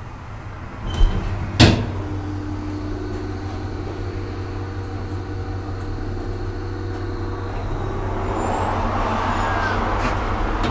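Two loud clicks about a second in, then a Schindler hydraulic elevator's pump motor runs with a steady hum as the car travels. A broader rushing noise builds over the last few seconds.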